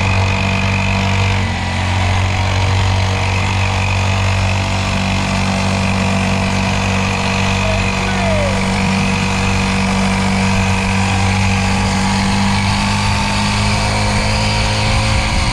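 Motorcycle engine running at a steady low note while riding, with a small shift in pitch about a second and a half in.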